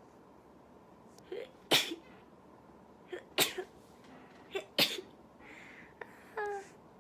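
A woman sneezing three times in quick succession, each sneeze sharp and loud after a short catch of breath. A brief voiced sound follows near the end.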